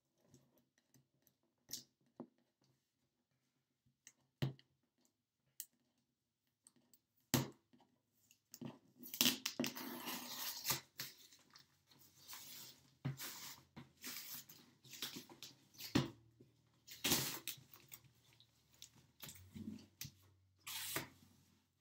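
Packing tape being picked at and peeled off a cardboard box. A few scattered clicks and taps come first, then from about eight seconds in a long stretch of scratchy tearing and rustling, broken by sharp cracks.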